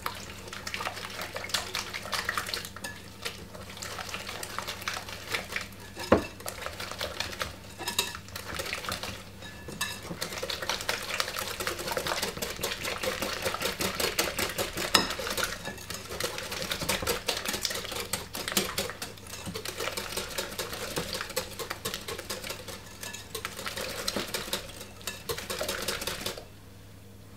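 Metal balloon whisk beating eggs into creamed butter and sugar in a glass mixing bowl: fast, continuous clicking and scraping of the wires against the glass, with a few brief pauses, stopping suddenly near the end.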